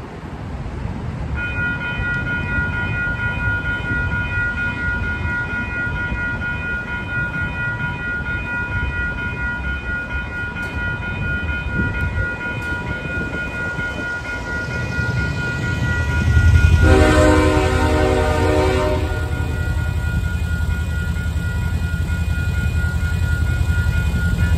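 A railroad crossing warning bell starts ringing a second or so in and keeps on steadily. About 17 s in, a train horn sounds one blast of about two seconds over the growing rumble of the approaching train.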